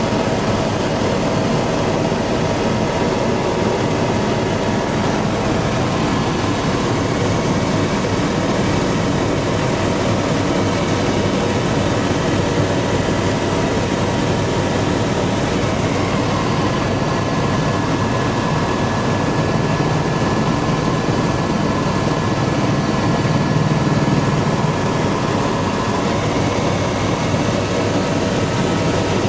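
Helicopter in flight heard from inside the cabin: a loud, steady engine and rotor noise with a faint steady whine running through it.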